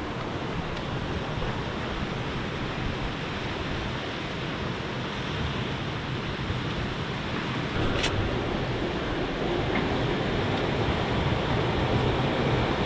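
Steady rush of wind and sea passing a sailing catamaran under way, growing a little louder in the second half, with a single short click about eight seconds in.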